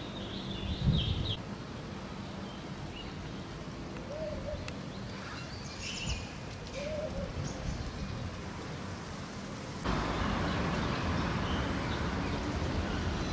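Birds chirping in short high calls over a low street hum. About ten seconds in, a cut brings in louder, even traffic noise from the road.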